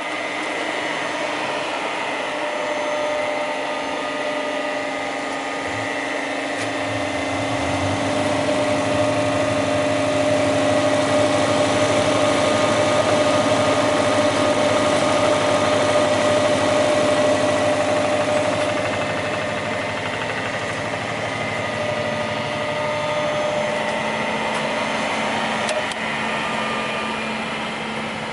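SAFO stake sharpening and chamfering machine running with a steady mechanical whine and hum, growing louder and rougher for about ten seconds in the middle, then settling back.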